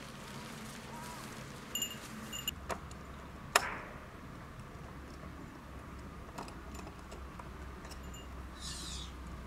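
Clinks and knocks of camping gear being handled and loaded at the open rear of a van, a few small clicks about two seconds in, then one sharp knock about three and a half seconds in, with a low steady hum underneath.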